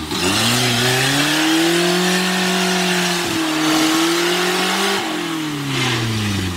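Off-road vehicle's engine revving under load: the pitch climbs over the first two seconds, holds high with a brief dip a little past three seconds, then falls away near the end.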